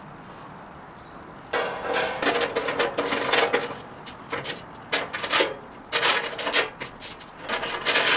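Metalwork on a stainless steel parts-cleaning tank: a run of short, rough, rasping bursts that starts about a second and a half in, as a brass fitting is worked into the tank.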